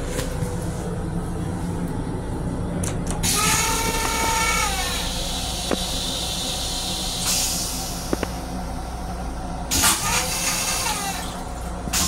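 Railcar toilet flushing: a rush of hissing air and water with a whining pump tone that falls away, over the steady low rumble of the moving train. A second, shorter hiss comes near the end.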